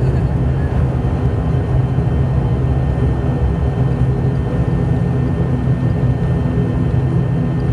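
Aircraft engines running steadily after landing: a constant low rumble with faint unchanging tones above it.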